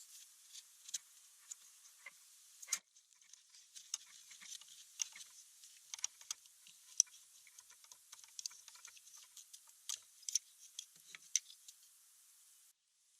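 Scattered light clicks and ticks at irregular intervals, mostly high-pitched, over faint hiss.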